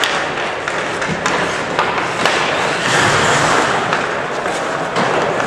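Ice hockey play on a rink: skate blades scraping and carving the ice, with scattered sharp clacks of sticks and puck. The scraping gets louder for a moment about three seconds in.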